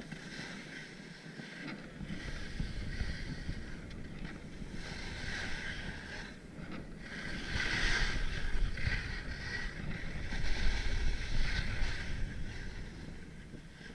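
Alpine skis scraping and hissing over packed snow through slow turns, with wind rumbling on the microphone. The scraping swells louder twice in the second half.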